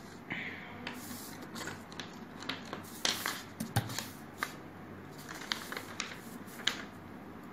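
Sheets of paper being turned over and smoothed flat on a desk: irregular rustling and crackling with sharp crinkles, loudest about three to four seconds in.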